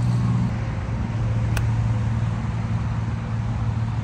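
A single sharp click of a 58-degree wedge striking a golf ball, about a second and a half in, over a steady low engine hum.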